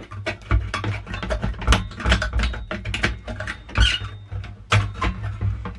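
Irregular clicks, taps and scrapes of small metal and plastic parts being worked and handled: the monitor's main board and its soldered grounding tabs being freed from the sheet-metal chassis.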